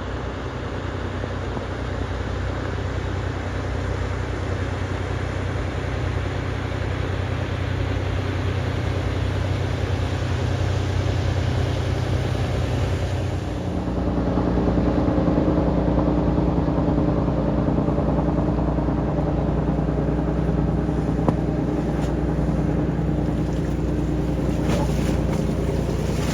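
Small boat engine running steadily, its note changing about halfway through.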